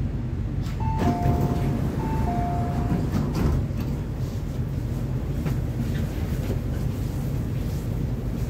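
Two-note falling electronic chime sounding twice in quick succession inside an MTR C-Train, over the train's steady low rumble and hum.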